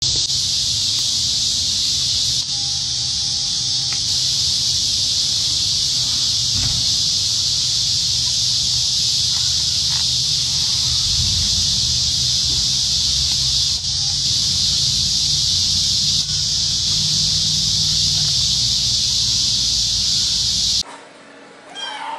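Loud, steady insect chorus in summer grass, with a low rumble underneath; it cuts off abruptly about 21 seconds in. A brief faint squeak, rising in pitch, follows near the end.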